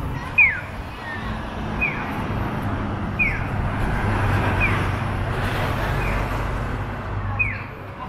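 Street traffic, with a vehicle's engine hum swelling through the middle, and a short high downward chirp repeating evenly about every second and a half.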